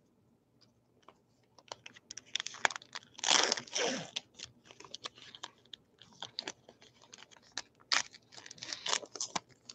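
A trading-card pack wrapper crinkling and being torn open by hand: scattered crackles and clicks, with two longer crinkling rustles about three to four seconds in.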